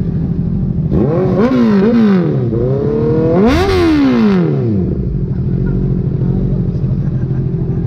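Motorcycle engine idling through its exhaust pipe and revved with the throttle: two quick blips about a second in, then one larger rev, falling back to a steady idle.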